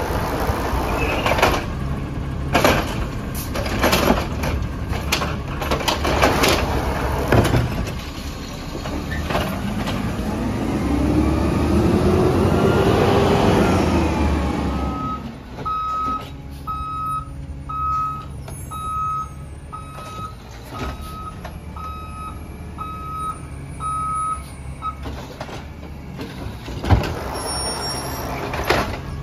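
Compressed-natural-gas Peterbilt 320 automated side-loader garbage truck at work: a run of bangs and knocks as the arm dumps and sets down carts, then the engine swells up and falls back as the truck moves. After that a reverse alarm beeps about once a second for some ten seconds, and a sharp bang comes near the end.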